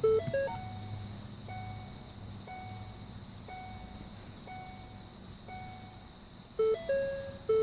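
Background music in a soft passage: single chime-like notes about once a second. The fuller melody comes back near the end.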